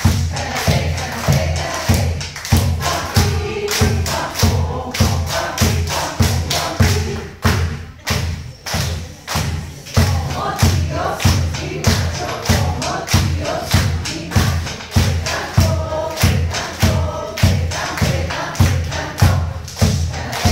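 Mixed choir singing a rhythmic song together over a steady low thud that beats about twice a second.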